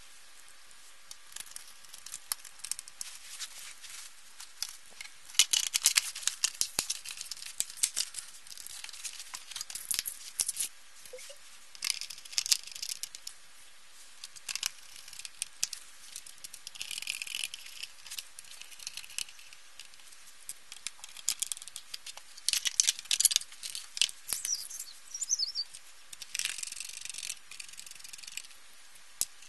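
Clicks, rattles and scraping of an LCD monitor's plastic casing and metal chassis being handled and fitted back together, in short clusters with quieter gaps between.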